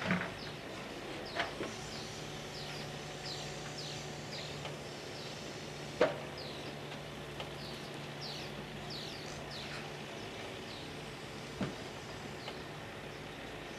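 Scania R440 timber truck idling with a steady low hum while its V-Kran crane grapple loads logs; a sharp wooden knock about six seconds in as logs are set onto the load, with lighter knocks near the start and near the end. Birds chirp with many short falling calls throughout.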